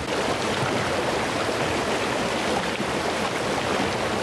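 A mountain river rushing over rocks: a steady, even wash of water noise.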